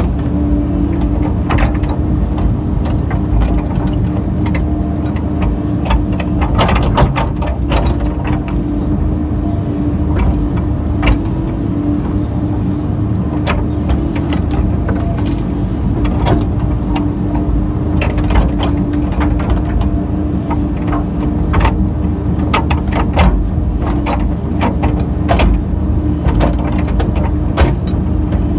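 Kobelco excavator's diesel engine running steadily under working load, heard from inside the cab, with frequent irregular clanks and knocks from the bucket and thumb as it digs into dirt around a stump.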